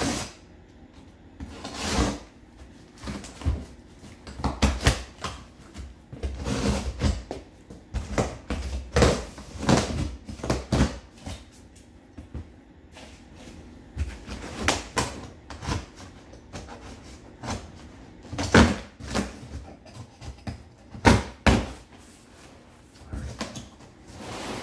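Cardboard shipping box being slit open with a utility knife and its flaps pulled back: irregular scraping, tearing and knocks of cardboard.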